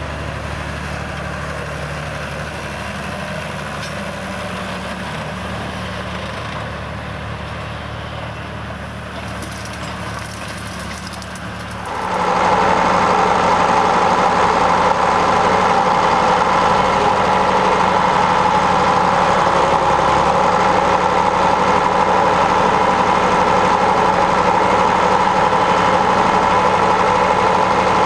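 John Deere 3050 tractor's diesel engine running steadily under load. About twelve seconds in it jumps much louder and closer, heard right beside the engine, a steady strong drone.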